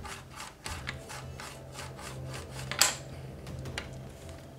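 Flat plastic lid rubbed back and forth over a ridged plastic texture plate while rolling green stuff putty between them, a rasping stroke about three times a second. Near the middle the rubbing stops with one sharp plastic click.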